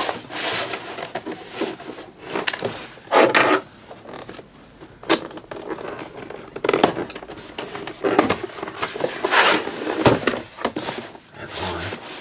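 Cardboard box and packaging being handled and opened by hand: irregular scrapes, rustles and knocks.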